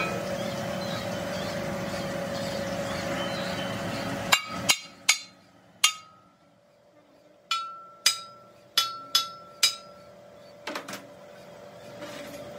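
Hammer blows on steel in a truck trunnion shaft repair: about nine sharp strikes, each ringing briefly with a clear metallic tone, irregularly spaced, then a couple of lighter knocks near the end. A steady running noise cuts off just before the first blow.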